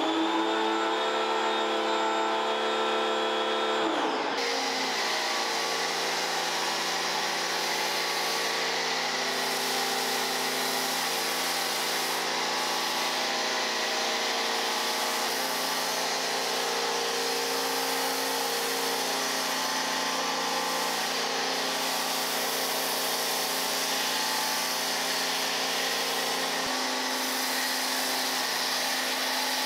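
Vacuum cleaner motor running steadily with a whining tone over a rush of air. Its pitch shifts abruptly about four seconds in, again around the middle and once more near the end.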